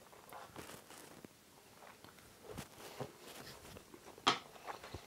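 Faint mouth sounds of a man chewing a mouthful of fried udon noodles, with a sharp click about four seconds in as metal tweezers are set down on a plastic cutting board.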